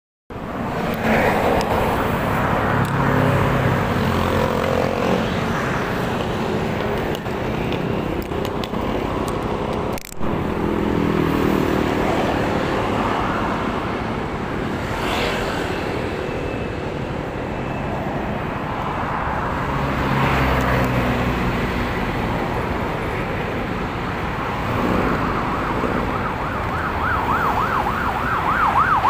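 Motorcycle riding in traffic: steady wind rush on the microphone over engine and road noise. Near the end a siren starts, yelping rapidly up and down in pitch.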